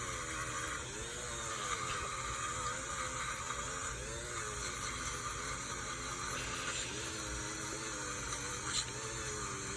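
Small electric power tool fitted with a wire brush, whirring as it scrubs surface rust off a metal toy; its motor pitch dips and recovers about once a second as it is pressed against the metal.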